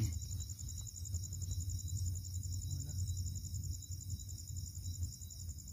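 Crickets trilling steadily, a high, finely pulsing chirr that doesn't let up, over a low rumble.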